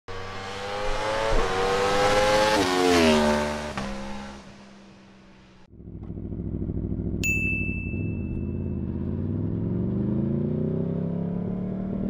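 Aprilia Tuono V4's V4 engine revving up, dropping sharply in pitch about three seconds in and then fading away. After an abrupt cut the engine runs again, its revs climbing steadily near the end, with a high steady tone sounding for about two seconds in the middle.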